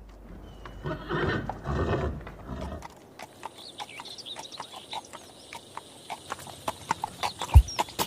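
A horse whinnying, then hooves clip-clopping in a steady run of clicks, with faint bird chirps. A deep thump comes in near the end.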